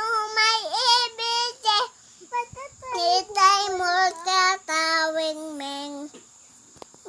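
Toddler girl singing in long, wavering held notes, in two phrases with a short break about two seconds in; the voice stops about a second before the end.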